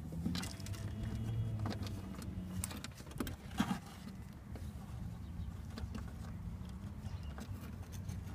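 Scattered light clicks and taps of hands and tools working on car-door wiring over a steady low hum, with a sharper tap about three and a half seconds in.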